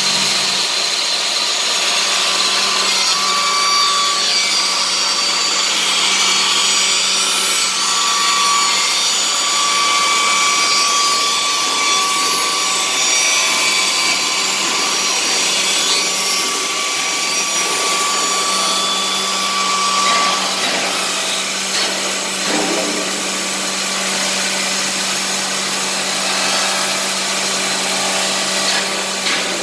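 Automatic wood copy shaper running and shaping a wooden blank: a steady motor hum under a loud high hiss, with a high whine that stops about twenty seconds in.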